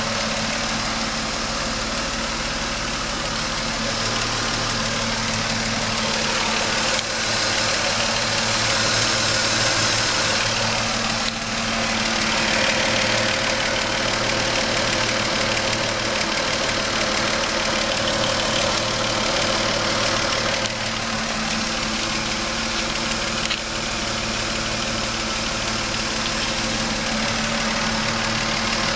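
Car engine idling with a steady hiss over it and a knocking that the owner asks about as possible engine knock.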